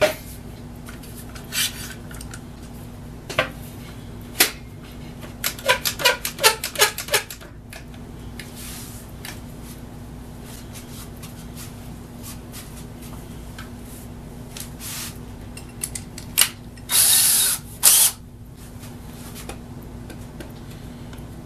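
A quick run of ratcheting clicks from a quick-grip bar clamp being squeezed tight, with scattered handling knocks, over a steady low hum. Near the end a DeWalt cordless drill runs in two short bursts, the loudest sounds.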